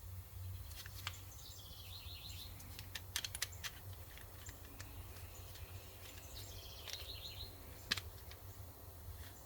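Faint songbird singing the same short trilled phrase twice, with a few sharp clicks scattered between the phrases and a low steady hum underneath.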